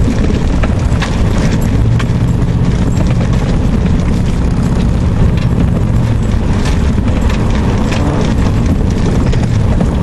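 Truck's engine and tyres running on a rough, muddy dirt road, heard inside the cab: a steady low engine hum under road noise, with frequent short knocks and rattles.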